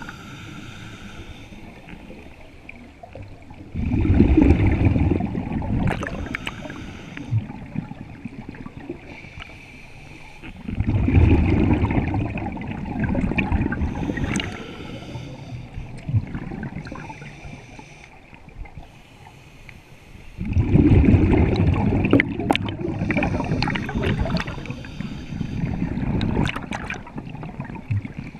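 Scuba diver breathing through a regulator underwater: a hiss on each inhale, then a loud rumbling burst of exhaled bubbles, three breaths about eight seconds apart.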